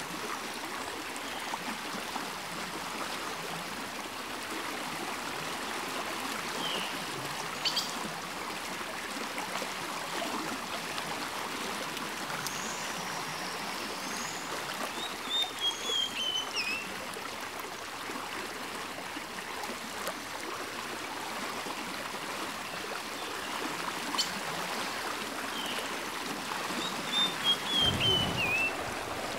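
Small creek running steadily over rocks. A bird sings a short, downward-stepping chirping phrase several times over it. There is a brief low rumble near the end.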